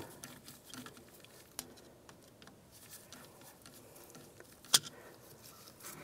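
Faint scattered ticks and taps of a flat-blade screwdriver working the screw of a worm-drive hose clamp on a rubber heater hose, with one sharp click near the end.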